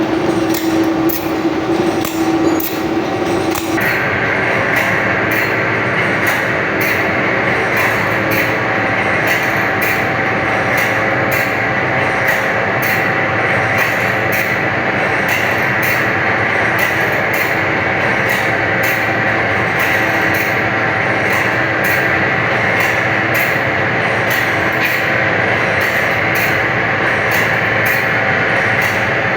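Band saw sharpening machine grinding the teeth of a sawmill band saw blade, with a regular tick about one and a half times a second as the blade is stepped on tooth by tooth. About four seconds in, a higher grinding sound comes in and holds to the end.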